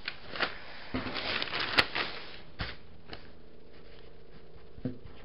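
A sheet of pattern paper rustling and sliding on a table for about a second, with a sharp click in the middle, followed by a few light knocks and faint pen strokes on the paper.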